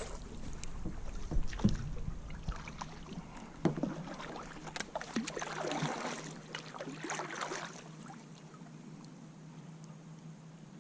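Kayak handling sounds: scattered knocks and clicks against the hull with bits of water splashing. They die down about eight seconds in, leaving a quiet steady background.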